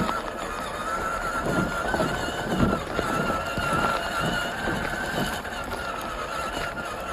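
The 1:10 RC crawler's electric motor and geared drivetrain whining steadily as it drives, rising slightly in pitch in the first second. Irregular knocks and crunches from the tyres and chassis on the rough trail come in the middle.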